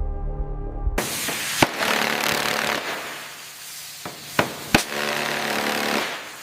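Background music until about a second in, then a power tool working on the corroded fuselage's panel bolts: a whirring, grinding noise in two spells with several sharp metallic knocks between them.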